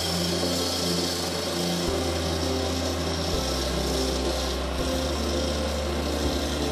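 Walk-behind asphalt cutting saw buzzing steadily as its blade cuts through the pavement, a continuous gritty grinding noise.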